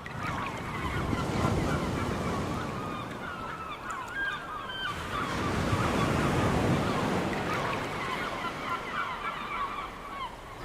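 A flock of birds calling in many short, overlapping cries over sea waves washing on the shore; the surf swells twice, about a second and a half in and again around six seconds.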